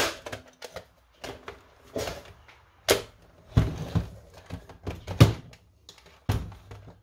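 Hard plastic shell parts of a Nerf Vulcan blaster clacking and knocking as they are slid and pressed back into place by hand: an irregular string of knocks, the loudest about five seconds in.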